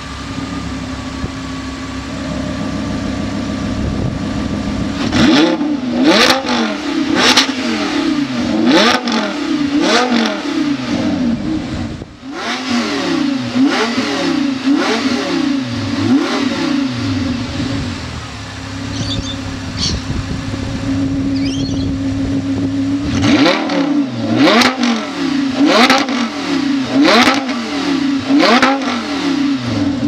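Audi R8's 5.2-litre V10 with a Fi valvetronic cat-back exhaust and catless downpipes, valves closed, free-revving at a standstill. It idles steadily, then is blipped about once a second in quick runs with sharp cracks at several rev peaks, settles back to idle, and is blipped again near the end.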